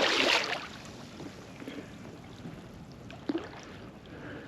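A short splash of water at the start, then faint water lapping around the kayak.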